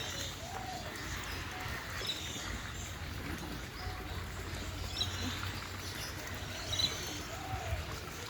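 Birds chirping and calling now and then, short high chirps with a few lower arched calls, over a steady low rumble.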